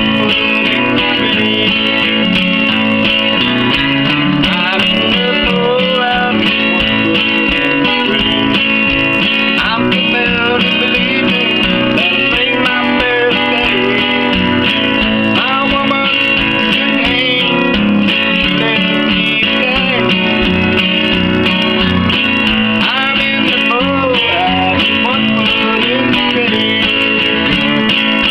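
Steel-string acoustic guitar strummed in a steady country rhythm, chords ringing continuously.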